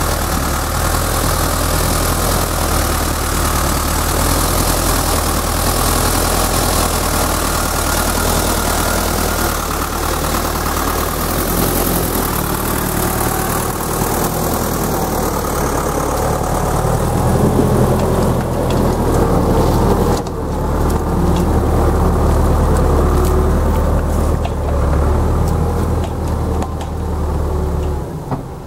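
Ford 5600 tractor's three-cylinder diesel engine running steadily as it hauls a forestry trailer loaded with logs along a forest track. It grows loudest as it passes close by around the middle and drops off right at the end as it moves away.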